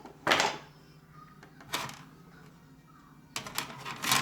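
Sand-play tools and molds tapping and clattering on a cookie sheet: a knock about a quarter second in, another near two seconds, and a run of quick clicks in the last second.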